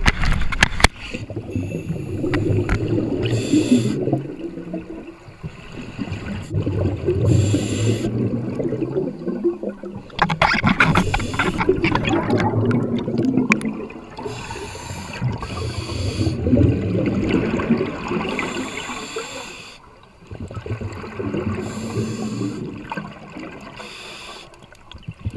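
Scuba diver breathing through a regulator underwater: a short hiss on each inhale, then a long gurgling rush of exhaled bubbles, repeating about every four seconds.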